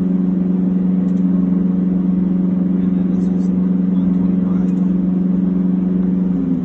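Zlin 242L's four-cylinder piston engine droning steadily in flight, heard inside the cockpit. Its tone shifts slightly and gets a little quieter right at the end.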